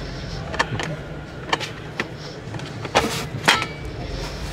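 Clicks and knocks of the plastic ski pass-through hatch in a Volkswagen ID.4's rear seatback being gripped and pulled open, over a steady low background hum. Several light clicks come first, and the two loudest knocks come about three seconds in, half a second apart.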